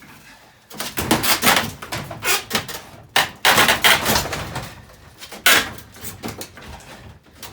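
Junk being shifted and pulled aside while digging through a dump pile: irregular clattering, scraping and knocking, with the loudest knocks about a second in, around three to four seconds in, and again about five and a half seconds in.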